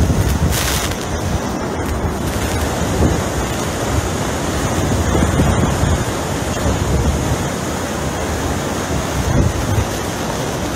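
Hurricane Ida's winds and driving rain, a dense, loud rush with uneven gusts that batter the microphone.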